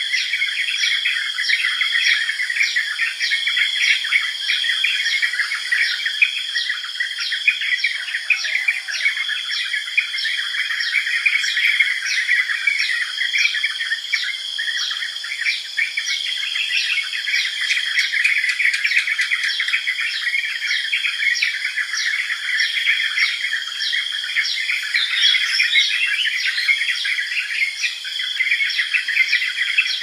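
Yellow-vented bulbul calls in a busy tropical bird chorus, with a rapid, regular series of short high notes nearly twice a second and a steady high insect whine beneath.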